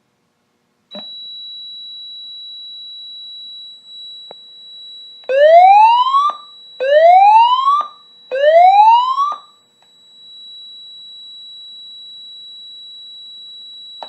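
Fire alarm system in alarm from a smoke detector. A steady high-pitched tone comes on with a click about a second in and keeps sounding. Then a System Sensor speaker strobe plays three loud rising whoop tones, the voice-evacuation alert tone that comes before the spoken message.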